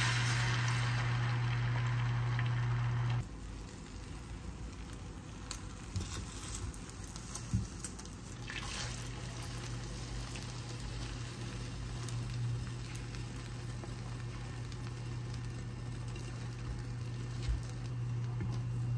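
Beaten egg sizzling as it is poured into a hot rectangular egg pan, loud for about three seconds and then cutting off suddenly. A quieter sizzle of the egg sheet cooking follows, with a few light taps of the spatula against the pan over a low steady hum.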